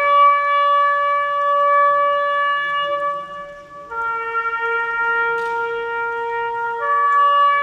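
Solo trumpet playing slow, long held notes. A high note is held for about three seconds, there is a short break, then a lower note is held for nearly three seconds before it steps back up near the end.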